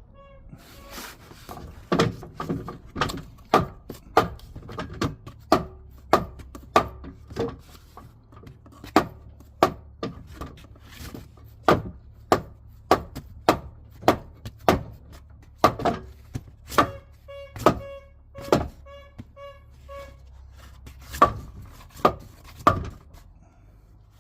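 Repeated sharp knocks, about one to two a second, some with a brief metallic ring, from work on the wooden blocks and jack under the fuel tank.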